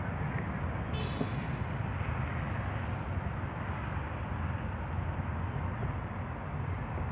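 Steady low rumble of outdoor background noise, with a short high chirp about a second in.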